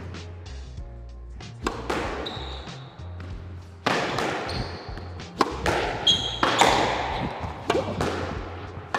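Squash rally: a squash ball cracking off rackets and the walls about once a second, each strike echoing in the enclosed court, with rubber-soled court shoes squeaking sharply on the floor between shots.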